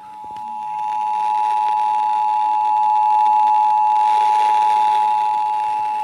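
Emergency Alert System attention signal: the steady two-tone alarm (853 and 960 Hz sounded together) coming from a Midland weather-alert radio's speaker during a required monthly test. It swells over the first second, then holds steady; it marks the start of an alert before the spoken test message.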